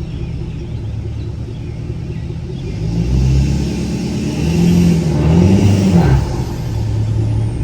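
Diesel engine of a heavy machine working under load while trying to pull out of soft mud. Its note rises about three seconds in, climbs and falls again around five to six seconds, then settles back to a steady run: the machine is straining but not getting traction.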